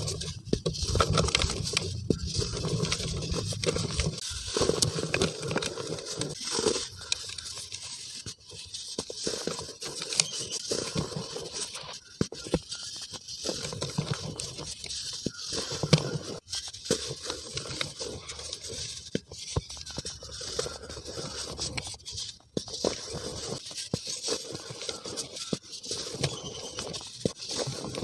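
Hands rubbing and swirling fine dry gray powder around a bowl: a continuous gritty, crumbly rustle dotted with many small crackles and brief pauses between strokes.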